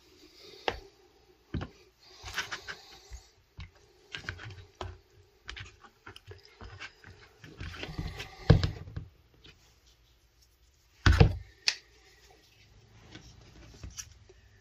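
Tools and small objects being handled and set down during hand crafting: irregular taps, clicks and rustles, with louder knocks about eight and eleven seconds in.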